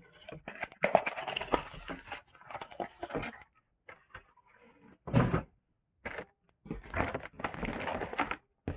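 Keyboard packaging being opened and handled: irregular rustling, scraping and crackling of cardboard and plastic, with a dull thump about five seconds in.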